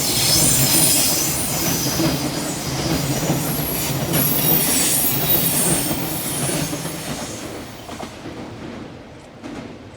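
Freight train rolling past with squealing wheels and clatter on the rails, fading away over the last few seconds as the train draws off.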